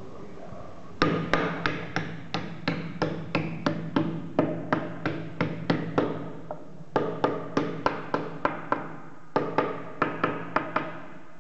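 Repeated hammer blows, about three a second, in runs broken by two short pauses.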